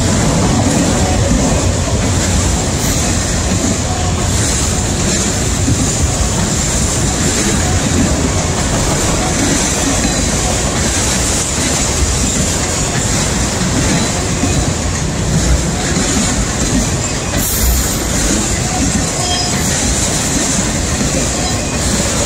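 Autorack freight cars rolling past close by: a steady, loud rumble of steel wheels on rail that keeps up without a break.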